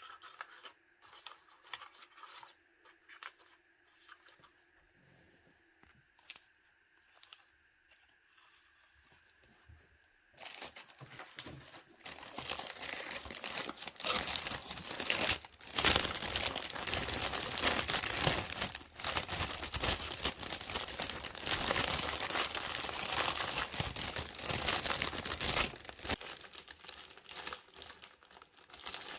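Faint light clicks over a steady low hum, then from about ten seconds in a long spell of loud crinkling and rustling of wrapping material being handled and crumpled, which eases off near the end.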